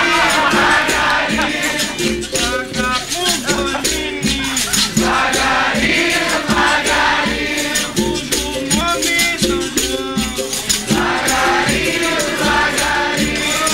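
Capoeira roda music: berimbaus with caxixi rattles shaking on the beat, a steady drum pulse, and a group of voices singing.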